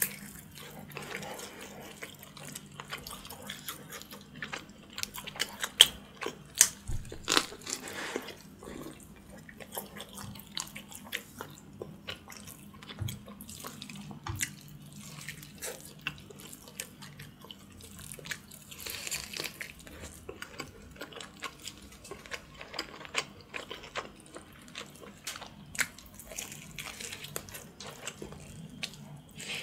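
Close-miked eating sounds of a person gnawing meat off a Thai spicy pork back bone (leng saeb): irregular wet smacks, sucking and clicks. The loudest bites come around six to eight seconds in.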